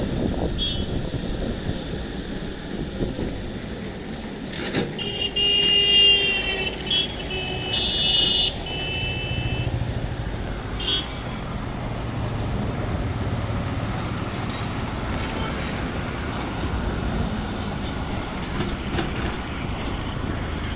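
Diesel engine of a JCB 3DX backhoe loader running steadily, with a horn tooting several times about five seconds in.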